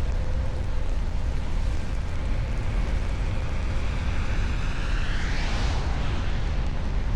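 Car driving on a snowy road: steady low road and wind rumble, with a rising whine that climbs from about two and a half seconds in and stops at about six seconds.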